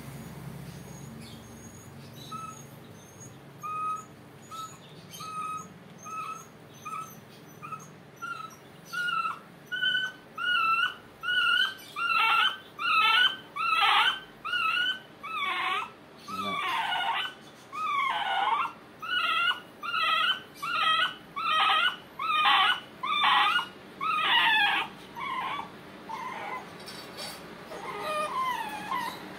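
Sedated puppy crying during ear cropping: a long run of short, high-pitched whimpering cries, about one a second, faint at first, growing loud in the middle and fading near the end. The crying is put down to the puppy being a crier, not to it waking up.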